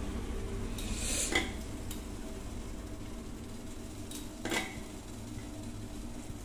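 Metal kitchen bowls and utensils clinking as they are handled on the counter, with two brief clatters, one about a second in and one about four and a half seconds in, over a steady low hum.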